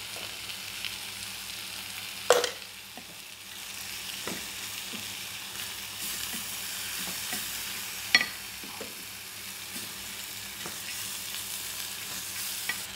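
Red lentils sizzling in oil in an aluminium pot as they are stirred with a spoon: a steady frying hiss with scraping. Two sharp knocks of the spoon on the pot, a couple of seconds in and again about eight seconds in.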